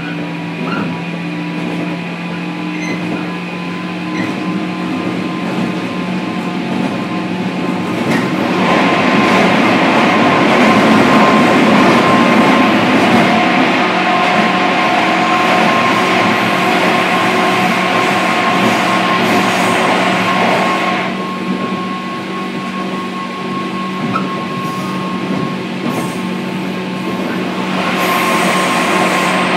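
Running noise inside a JR 103 series electric train car (KuMoHa 103-1512): rail and motor noise over a steady hum. It grows louder about eight seconds in, eases about twenty-one seconds in, and rises again near the end.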